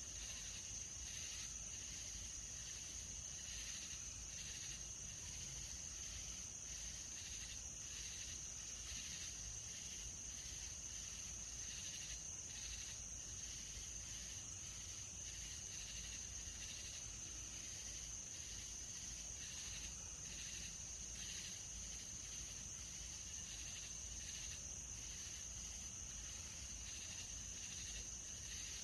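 Night-time chorus of crickets and other insects: a steady high trill, with a second insect chirping in an even pulse about twice a second.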